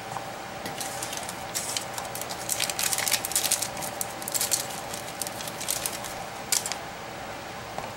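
A run of small sharp clicks and rattles, as of small parts and hand tools being handled on a workbench, busiest in the middle and with one last click near the end, over a faint steady hum.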